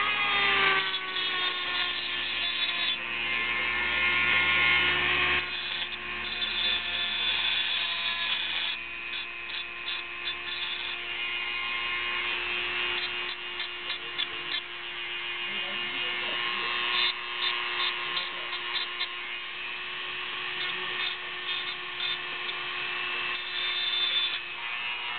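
Dremel rotary tool running at high speed, grinding and deburring the sharp edges of a homemade metal lockpick. Its whine drops in pitch just after the start, then holds steady under the grinding, with scattered ticks of the bit against the metal.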